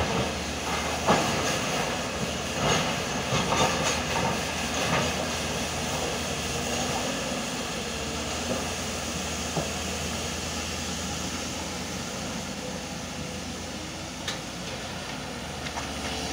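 Diesel engines of a Volvo crawler excavator and a dump truck running steadily, with several knocks and clatters of rock in the first five seconds as the excavator works.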